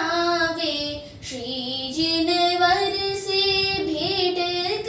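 A young girl singing a Hindi Jain devotional song (bhajan) solo, drawing out long held notes with a brief pause for breath about a second in.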